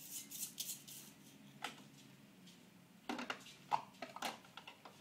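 Light clicks and clatters of plastic toy-kitchen pieces being handled: a few scattered taps, coming thicker from about three seconds in.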